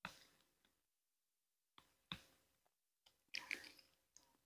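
Near silence, with a handful of faint, short clicks from eating mangosteen.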